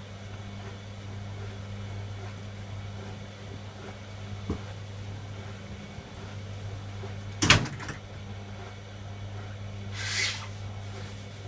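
Servis Quartz MK601 washing machine running with a steady low hum. A small click comes about four and a half seconds in, a loud double knock about two-thirds of the way through, and a short hiss near the end.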